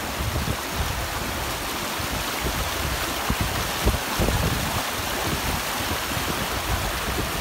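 A fast-flowing river rushing and splashing around a line of stepping stones, a steady, even rush of water. The river is running well after overnight rain.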